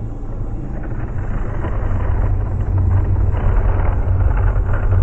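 LEGO toy train running on plastic track, a steady low rumble from its motor and wheels that grows louder as it comes closer.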